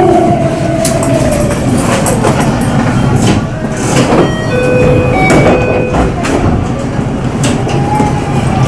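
Electric train standing at a station platform: a steady rumble with scattered clicks, a tone falling in pitch in the first second, and a few short steady tones about halfway through.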